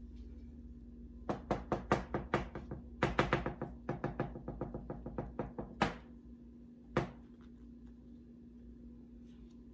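Rapid sharp taps or knocks on a hard surface, about five or six a second in two runs of a few seconds each, then one single knock about a second later. A steady low hum runs underneath.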